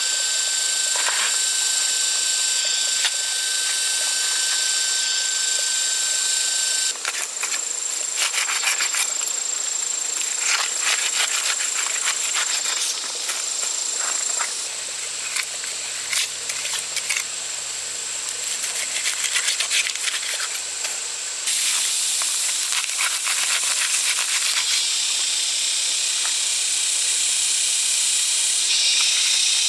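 Steady high-pitched hiss with thin constant whistling tones, its character changing abruptly several times.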